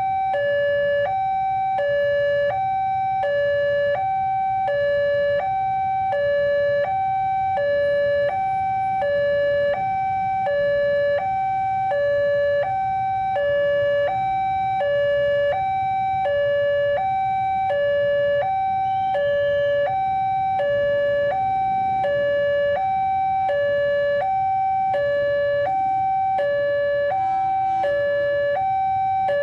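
Railway level-crossing warning alarm from the horn speaker on the crossing post: an electronic two-tone signal alternating evenly between a lower and a higher tone, about one cycle a second. It warns that a train is approaching while the barrier is down and the lights flash.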